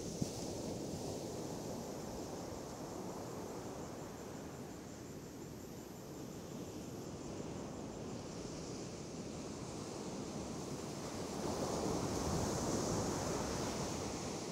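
Waves breaking on a sandy shore with wind on the microphone: a steady rushing that grows louder near the end. One short click just after the start.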